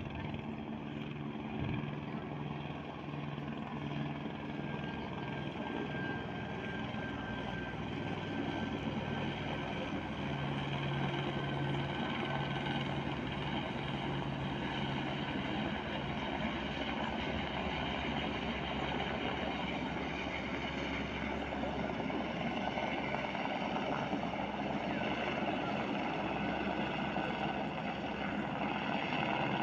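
Steady engine drone, a little louder from about ten seconds in.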